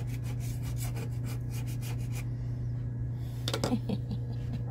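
Small razor-blade scraper scraping softened old adhesive off a varnished wooden bench seat in quick, short strokes for about two seconds, with a short louder sound about three and a half seconds in. A steady low hum runs underneath.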